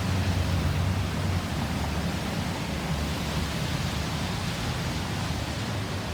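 Steady rushing road-traffic noise, with a low vehicle rumble that fades away in the first second and a half; no siren sounding.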